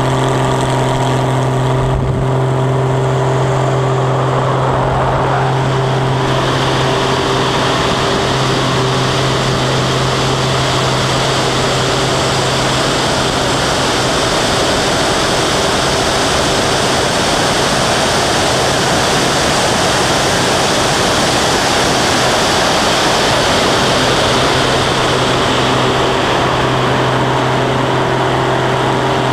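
Aerobatic biplane's piston engine and propeller running at a steady drone, heard under heavy wind rush on a wing-strut-mounted camera. The rush of air grows louder from about six seconds in and eases near the end.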